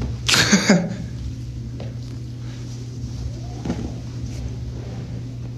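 A man's short laugh about half a second in, then a steady low hum with no talk.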